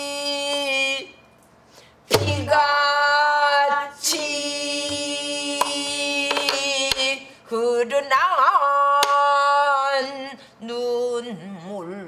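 A woman singing pansori in long held notes with heavy, wavering vibrato, pausing briefly between phrases. She is accompanied by strokes on a buk barrel drum, the loudest a hard drum stroke about two seconds in, with lighter stick taps later.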